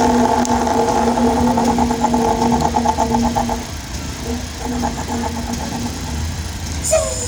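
A man's voice imitating a Freightliner truck's diesel engine running: a held, buzzing tone with a rapid pulse. It stops about three and a half seconds in and returns briefly a second later.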